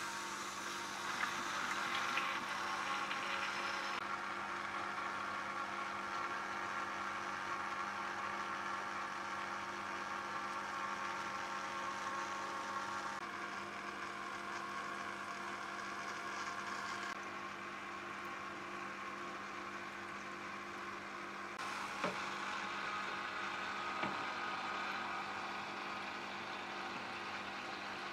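Modified GEX Multi Auto Cleaner, a motorised aquarium gravel cleaner, running: a steady pump-motor hum with the rush of water drawn up through its suction tube. The tone and level shift several times as the cleaner is worked in the tank, with a few faint clicks.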